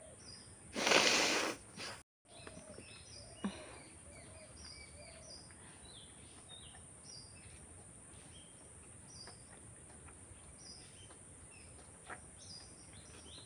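Birds chirping: many short, high chirps scattered throughout over steady outdoor background noise. About a second in, one loud burst of noise lasting under a second, then the sound cuts out for a moment.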